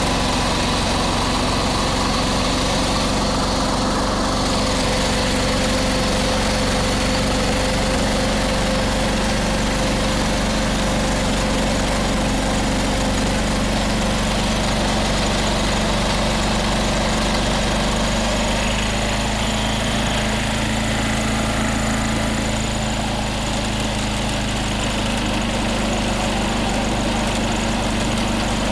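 John Deere 214 garden tractor's Kohler single-cylinder engine running steadily under load as it drives the 37A snow blower, which throws snow from its chute. The engine note shifts slightly about two-thirds of the way through.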